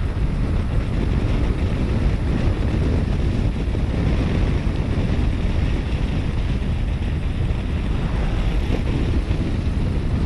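Wind rushing and buffeting on the microphone of a rider at speed on a Yamaha NMAX scooter, with the scooter's running and road noise underneath; steady throughout.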